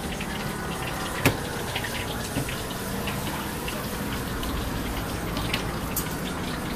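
Steady hissing noise from a steaming pot of noodle soup at a street food stall, with light clinks of utensils and bowls and one sharp click about a second in.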